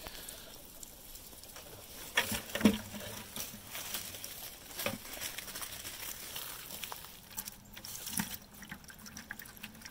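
Water from a well pump's discharge hose running steadily into a plastic 5-gallon bucket. A few sharp rustling knocks come about two to three seconds in.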